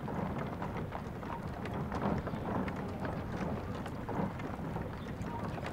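Many footsteps of a column of people walking on a dirt road, mixed with the hooves of a horse pulling a wooden cart, in an irregular patter of steps.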